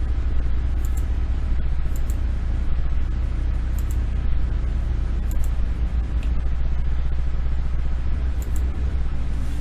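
Steady low hum with a handful of short, sharp clicks spaced a second or more apart.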